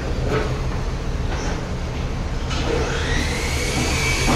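Workshop machinery running with a steady low hum. About two and a half seconds in, a high whine rises and then holds.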